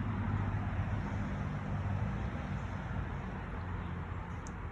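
Steady outdoor background noise with a low, even hum underneath, easing slightly in the second half.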